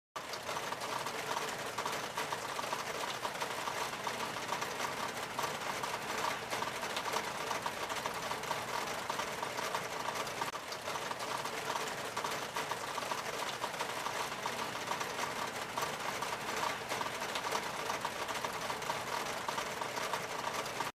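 Heavy rain falling steadily: a dense, even hiss of rainfall with a fast patter of drops striking surfaces.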